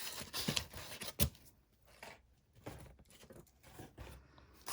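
Packaging being handled and unwrapped, rustling for about a second, with a sharp click a little over a second in, then softer scattered handling noises.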